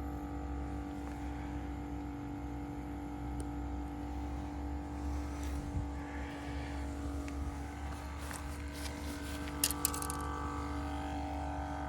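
Minnow bait-bucket air pump running with a steady hum. A couple of sharp clicks come about ten seconds in.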